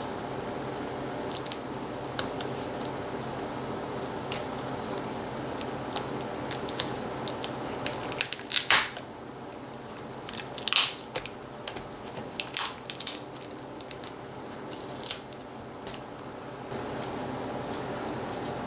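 Scattered small clicks and crinkling of tape and plastic as the display ribbon cable is worked loose at the back of a laptop LCD panel with a small screwdriver, with a few louder crinkles in the middle, over a steady low hum.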